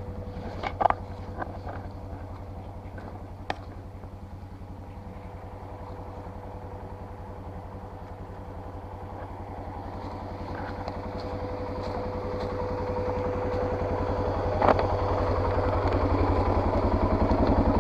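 Four-wheeler (ATV) engine running steadily at low speed, with a low throb and getting louder in the second half. A few sharp knocks or clatters come in between.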